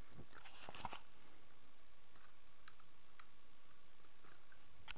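Small plastic clicks and rattles as a toy drone's battery pack and battery are unclipped and pulled out: a cluster of clicks in the first second, then a few faint, scattered ticks.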